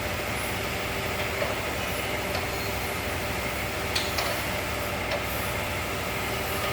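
Perfect PGH-60150AH hydraulic surface grinder running with a steady mechanical hum and an occasional sharp click.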